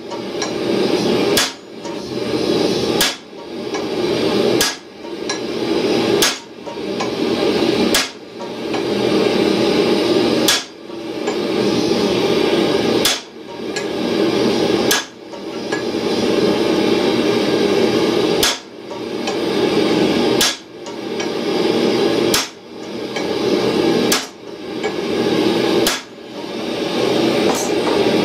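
Hand hammer striking a long steel top tool held on red-hot steel on an anvil, one sharp metallic blow about every two seconds. A steady noise fills the gaps between blows.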